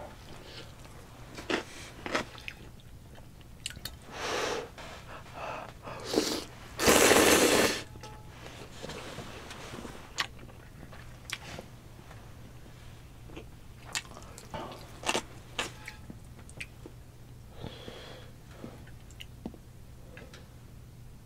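Close-up eating sounds of spicy ramen noodles and sausage: wet chewing, slurps and light clicks of chopsticks and a wooden spoon against the pan. About seven seconds in comes one loud breathy burst lasting about a second.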